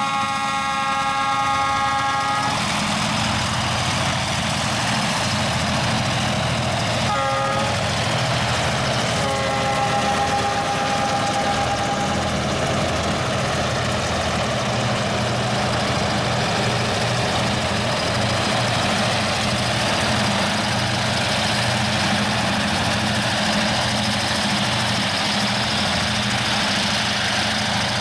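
Several diesel-electric freight locomotives passing close by, their engines running with a steady low rumble. A multi-tone air horn sounds: a blast of about two seconds at the start, a short toot about seven seconds in, and a longer blast of about three seconds starting about nine seconds in.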